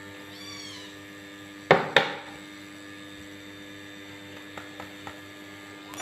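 Two sharp knocks about a third of a second apart over a steady electrical hum, with a faint brief high-pitched sound just before them and a few light ticks later.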